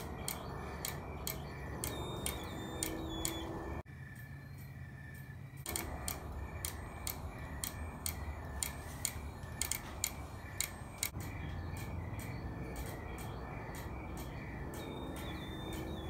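A chain of Wheelock fire alarm notification appliances sounding weakly: rapid, irregular clicking over a faint pulsing high tone, which the owner puts down to a low battery. The clicking pauses briefly about four seconds in, then carries on.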